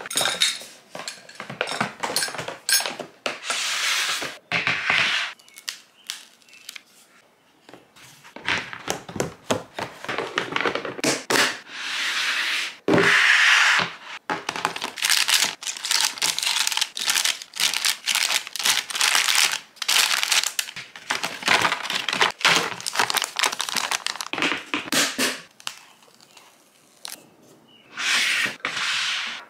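Hands setting plastic toiletry bottles and packaged items into clear plastic storage bins: many irregular clicks and knocks of plastic on plastic, with stretches of crinkling packaging. The loudest crinkling stretch comes about halfway through.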